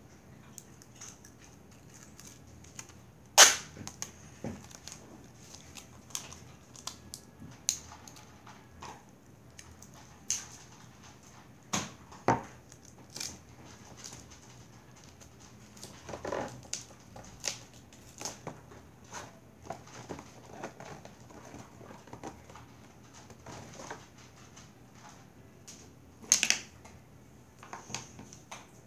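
Irregular clicks, taps and rustles from hands working a roll of tape and a cardboard box, with two sharp louder snaps, one about three seconds in and one near the end.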